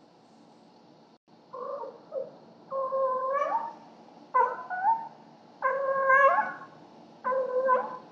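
Domestic cat yowling with a toy held in its mouth: a series of about five drawn-out calls, several rising in pitch at the end. It is the call a cat makes while carrying a 'gift' to its owner.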